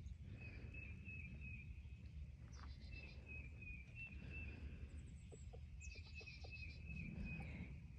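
Quiet outdoor ambience: a faint, high, steady trill that drops out now and then, with two short spells of songbird chirping, a little under 3 seconds in and again at about 6 seconds.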